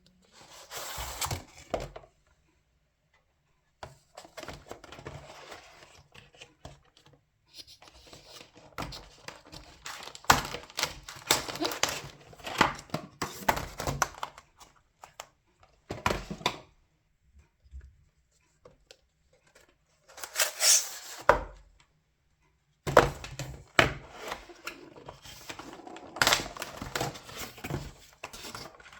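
Hands handling keyboard kit parts and their packaging: irregular bursts of crinkling and tearing with small plastic clicks and knocks, broken by pauses of a second or two.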